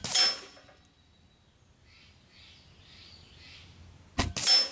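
Two shots from a Benjamin Armada semi-automatic regulated .22 PCP air rifle, about four seconds apart. Each is a sharp crack followed at once by a short ringing burst.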